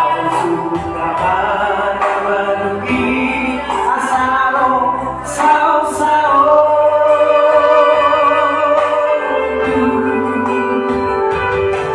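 Several men singing together in harmony through microphones, over live band accompaniment.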